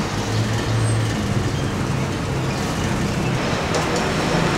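Steady road traffic noise, an even rushing haze with a low engine hum in the first second or so.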